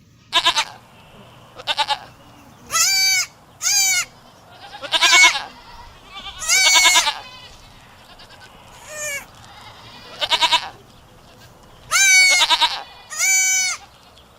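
Goat bleating repeatedly: about ten short calls spread over the whole stretch, some bending up and then down in pitch.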